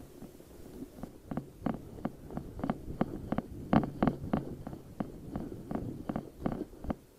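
Footsteps crunching through dry leaves and brush, about three sharp cracks a second over a low rumble, loudest a little past halfway.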